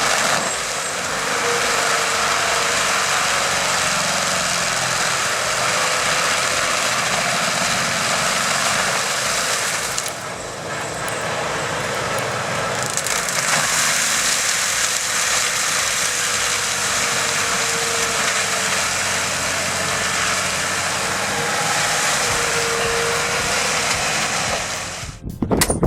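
Tractor-mounted forestry mulcher (AHWI M650 on a Fendt 824) running, its rotor and the tractor's engine making a steady, noisy sound that dips briefly about ten seconds in.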